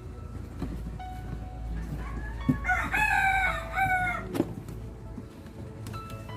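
A rooster crowing once, a stepped call lasting about a second and a half, starting about two and a half seconds in, over a low steady background hum.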